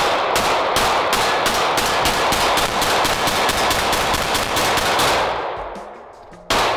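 9mm semi-automatic pistol fired rapidly, a string of about twenty shots at roughly four a second over some five seconds, then one more shot near the end.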